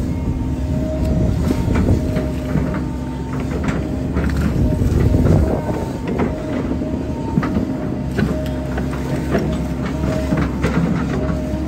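Hydraulic excavator running, its diesel engine and hydraulics droning steadily with a whine that comes and goes, as the bucket presses and smooths mud on an earth embankment. Scattered clanks and knocks throughout.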